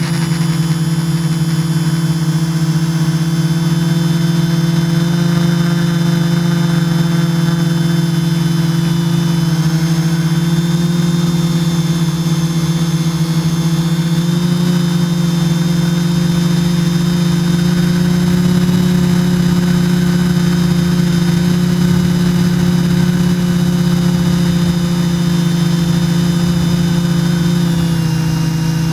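Multirotor drone's electric motors and propellers heard from the drone's own onboard camera: a loud, steady buzzing hum with a strong low tone, its pitch shifting slightly about a second before the end.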